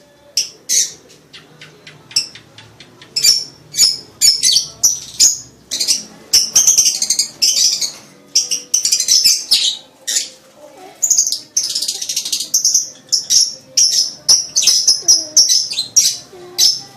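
Lovebird chattering in a rapid string of shrill, high chirps, sparse at first and then in dense continuous runs; breeding-season calling of the kind used to rouse a mate.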